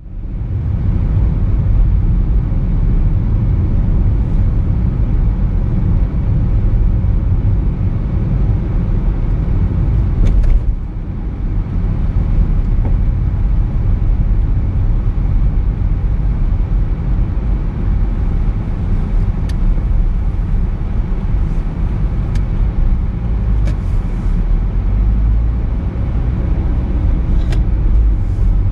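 Car on the move: steady low rumble of engine and tyre road noise, dipping briefly about ten seconds in, with a few faint ticks.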